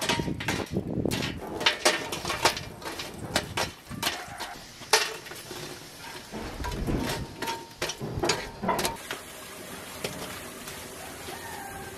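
Charcoal embers tipped from a small metal shovel into an enamel tray and spread with it: coals clattering and scraping against the enamel and each other in quick clinks and crunches. The noise turns quieter and steadier about nine seconds in.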